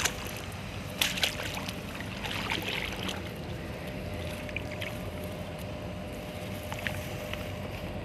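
A person wading across a river: water sloshing and splashing around the legs, with several sharper splashes in the first three seconds and steadier sloshing after.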